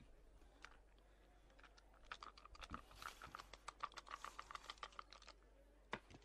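Dice rattled in a cupped hand: a quick run of small, light clicks for about three seconds, then a single sharper click near the end.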